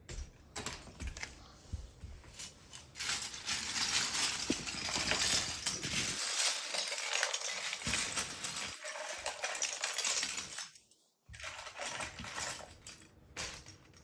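Many small plastic Lego bricks clattering and rattling against each other, as a dense run of clicks that is thickest from about three to ten seconds in, with a brief break near the end.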